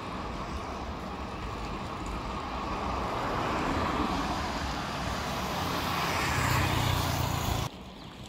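Street traffic noise of cars driving past, growing louder toward the end with a low engine hum, then cutting off suddenly near the end.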